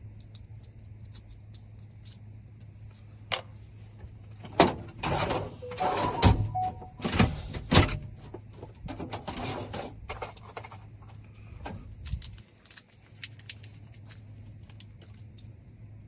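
Scattered clicks, taps and rustling from a car key and remote fob being handled, busiest between about four and eight seconds in, over a steady low hum.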